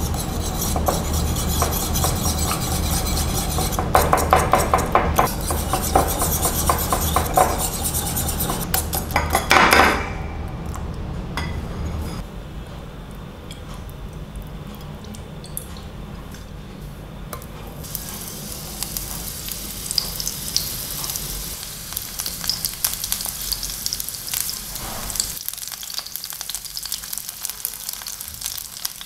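A wire whisk beats eggs in a ceramic bowl with fast clinking strokes for about the first ten seconds. Later, oil sizzles in a nonstick frying pan with bell pepper rings frying in it; the crackle starts about halfway through and grows.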